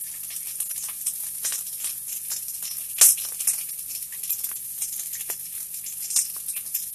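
Thick onion slices sizzling in hot oil in a cast-iron skillet: a steady hiss with scattered crackles and pops, and one sharper click about three seconds in.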